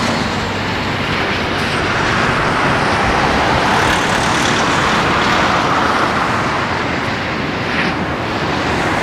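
Twin Rolls-Royce Trent turbofans of a Boeing 777-200ER at takeoff thrust, heard from a distance across the airfield as a steady jet roar through the takeoff roll and liftoff.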